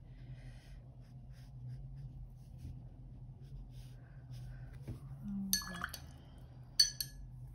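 Faint scratching of a watercolour brush on paper, then a paintbrush clinks against a glass water jar twice, about a second apart, starting a little past halfway through.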